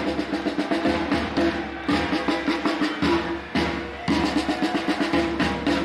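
Marching band drum line playing a fast cadence on snare, multi-tenor and bass drums.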